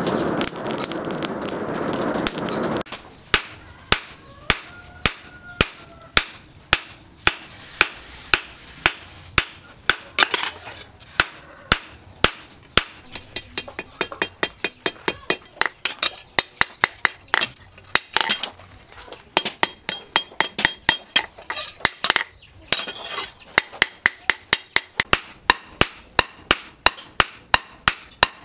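Hand hammer forging red-hot disc-plough steel on a steel anvil: sharp, ringing blows at about two a second, sometimes quicker. For the first three seconds a steady rushing noise runs under the blows.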